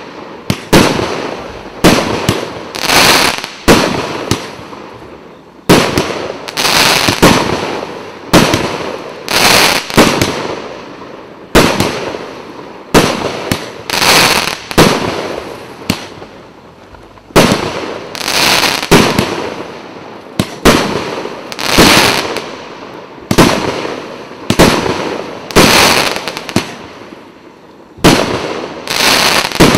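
A 49-shot, 1.2-inch consumer fireworks cake ('Абордаж' by Летучий Голландец) firing shot after shot, about one a second with a few short pauses. Each sharp bang of a bursting shell trails off into a fading hiss of glittering stars.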